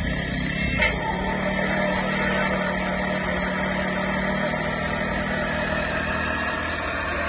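Small live diesel engine of a G-scale HGm 4/4 model locomotive running steadily just after starting, with a steady low hum and a short sharp click about a second in.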